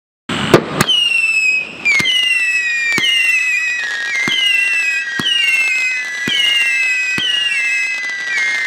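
T-Sky Backyard Bully 500-gram, 44-shot firework cake firing single whistling shots about once a second, starting a quarter second in: each launch pop is followed by a whistle that falls slightly in pitch, the whistles overlapping one another.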